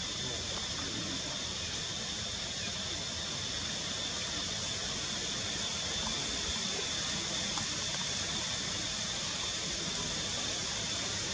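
Steady outdoor background ambience: an even, unbroken hiss with a steady high whine running through it, and no distinct events.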